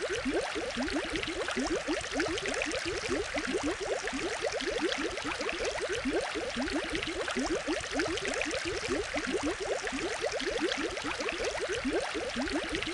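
Aquarium water bubbling: a steady stream of small bubbles, heard as many quick rising blips over an even hiss.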